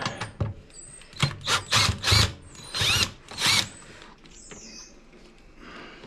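Cordless drill-driver backing a screw out of a washing machine's frame, in several short bursts of a rising motor whine.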